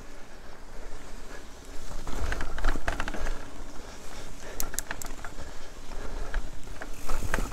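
Mountain bike ridden over a rough dirt forest track: steady tyre and frame rattle with a low rumble, louder about two seconds in, and a few sharp clicks and knocks around the middle and near the end.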